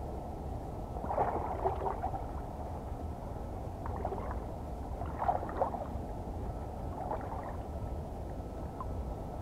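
Water splashing in four short bursts over a steady low rumble, as a hooked halibut is worked in the shallows.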